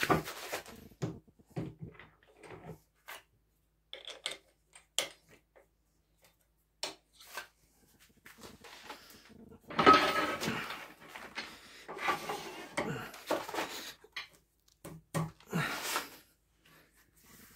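Irregular knocks, clunks and scrapes of a monkey puzzle log and the metal parts of a wood lathe being handled, as the log is turned by hand and set up between the centres, with the tool rest being adjusted. No lathe motor is running.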